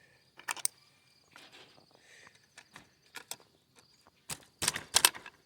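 Scattered sharp metal clicks and rattles, a couple about half a second in and a denser run near the end, as a wire rabbit cage door is pushed shut and latched, the latch stiff and tight in the humidity. A faint steady insect trill runs underneath.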